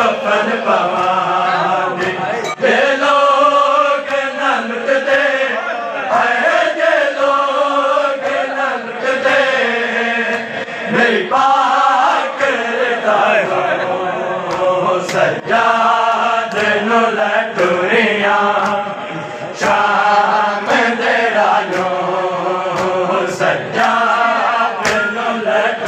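A group of men chanting a noha, a Shia lament, in unison without instruments, the phrases rising and falling. Scattered sharp hand slaps of matam are heard under the chanting.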